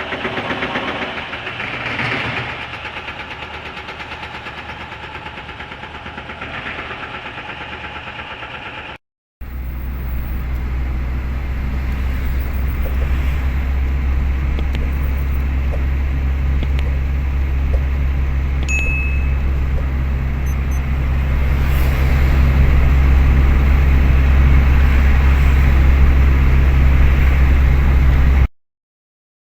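A vehicle engine running steadily. It breaks off about nine seconds in, then comes back as a heavy low rumble that grows a little louder before cutting off suddenly near the end.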